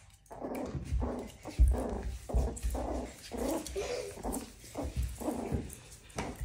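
Pomeranian puppy making short, repeated growls and whines as it tugs at a sock, with several dull bumps against the wooden floor.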